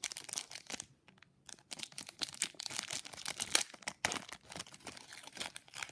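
Foil Yu-Gi-Oh booster pack wrapper being torn open and crinkled in the hands: a dense crackle with a short lull about a second in and a sharp crack about four seconds in.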